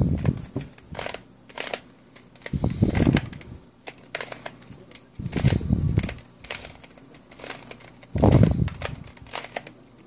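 Plastic pieces of a Wolf Tooth Cube, a skewb-type twisty puzzle, clicking and rattling as its layers are twisted by hand. The sound comes in bursts of about a second every two to three seconds, with a few single clicks between them.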